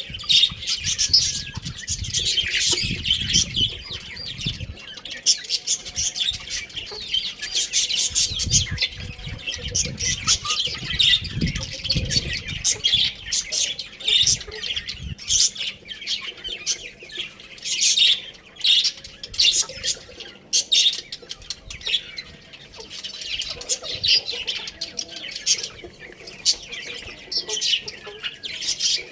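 Many small birds chirping continuously in quick, overlapping high peeps, with low rumbling underneath in the first few seconds and again from about 8 to 12 seconds in.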